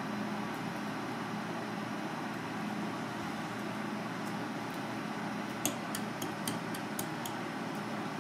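Steady low mechanical hum, with a quick run of about seven light clicks of a knife against a cutting board, starting about five and a half seconds in.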